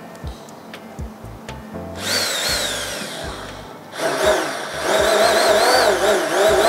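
Handheld immersion (stick) blender running in a jug of chocolate crémeux: it starts about two seconds in, eases off briefly, then runs louder from about four seconds, its whine rising and falling as the blade works the mixture. This is the blending stage that emulsifies the crémeux into a smooth, even cream.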